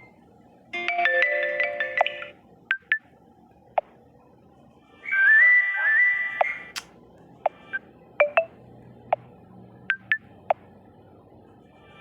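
Messenger ringtone previews playing one after another while choosing a notification sound. A short chime of several tones comes about a second in and a rising stepped tune about five seconds in, with short blips in between.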